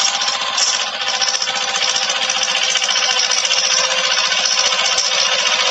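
Mahindra Jivo 245 mini tractor's two-cylinder diesel engine running steadily under load as it pulls a tyne cultivator through the soil.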